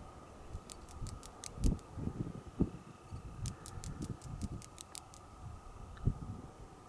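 Wind gusting on the microphone in uneven low buffets, with two short runs of rapid, dry ticking, about eight to ten ticks a second, about a second in and again around three and a half seconds in.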